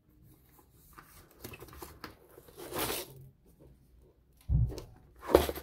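Cardboard and plastic film rustling and scraping as a model-ship kit's backing board, loaded with wooden strips and a parts tray, is lifted out of its box. A dull thump comes about four and a half seconds in, and another knock just before the end.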